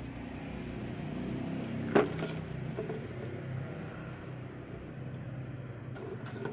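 A steady low engine-like hum runs underneath, with one sharp knock about two seconds in and a few light clicks near the end.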